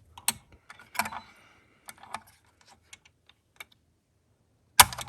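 CPU socket's metal load plate and retention lever being closed over a seated CPU: a few light clicks and scrapes, then a louder snap near the end as the lever latches and the plastic socket cover is pushed out.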